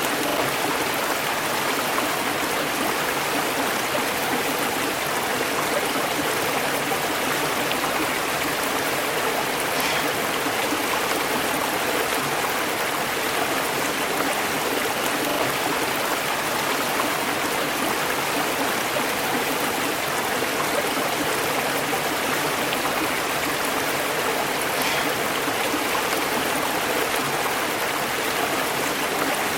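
River water flowing over rocks: a steady, even rush of running water.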